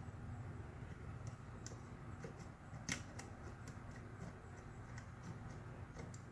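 Faint metallic clicks and scrapes of a pick and tension tool working the pins of a dimple cam lock, with one sharper click about three seconds in. A steady low hum runs underneath.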